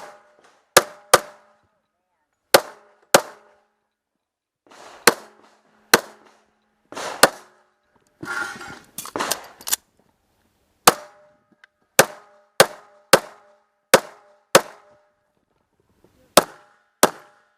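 Pistol shots in a timed action-pistol stage, fired mostly as quick double taps, about twenty in all, with short gaps between pairs as the shooter moves from target to target.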